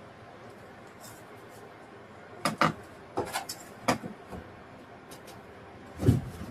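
A run of sharp knocks and clatters, like tools and pieces of wood being picked up and set down, then one heavier, deeper thump near the end.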